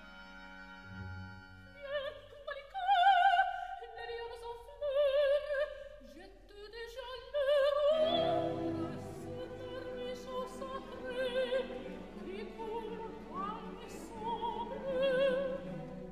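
Classical music in operatic style: a high voice sings long notes with a wide vibrato. A fuller orchestral accompaniment comes in about eight seconds in.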